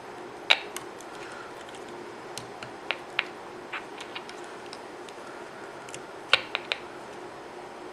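Scattered sharp clicks and ticks over a steady faint hiss while the AM transistor radio's circuit board is probed around a suspect electrolytic capacitor, with a cluster of three clicks near the end.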